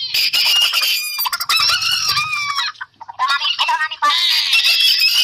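Roosters crowing, with one long crow about a second in and another near the end.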